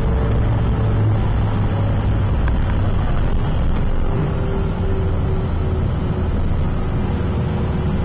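Steady cabin noise of a Cessna Citation CJ3's twin Williams FJ44 turbofan engines with a low hum, heard from inside the jet as it rolls along the runway.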